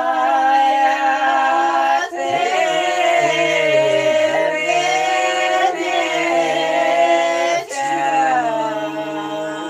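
Men and women singing a folk song together without accompaniment, drawing out long held, wavering notes. There are short breath breaks about two, six and eight seconds in.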